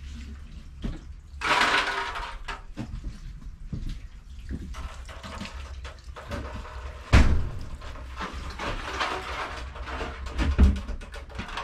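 Water pouring from a plastic watering can onto potted plants, splashing on the leaves and soil on and off. Two heavy knocks, about seven seconds in and near the end.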